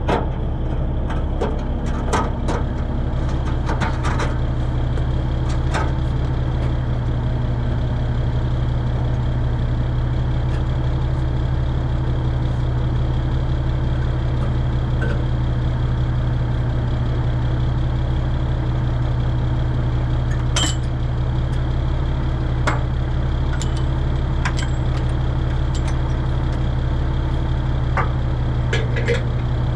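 1964 Kenworth self-loading log truck's diesel engine idling steadily, with a few sharp clicks over it.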